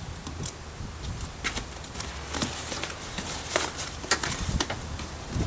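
Scattered clicks and rustles of wiring-harness clips and plastic being worked loose from the Ford Explorer's inner door frame by hand, over a steady low rumble.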